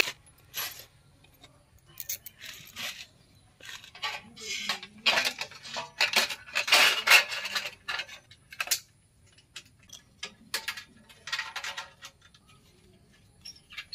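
Brass bolt, washers and nut being fitted through a copper strip and an earthing pipe and tightened with pliers and an adjustable wrench: irregular small metallic clinks, rattles and scrapes.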